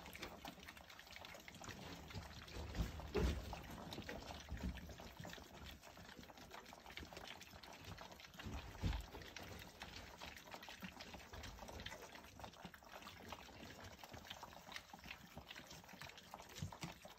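A litter of six-week-old North American Mastiff puppies eating together from one shared pan: faint, continuous lapping and chewing with many small irregular clicks, and two dull bumps about three and nine seconds in.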